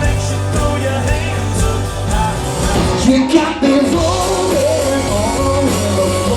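Background music: a song with a singing voice over a full band with a steady bass.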